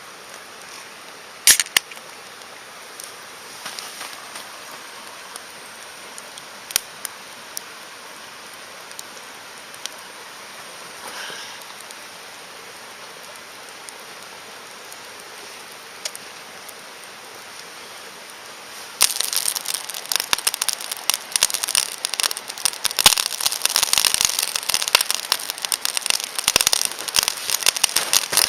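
A driftwood campfire that starts crackling abruptly about two-thirds of the way in, with dense, rapid snaps and pops. Before that there is only a faint hiss and a few isolated snaps.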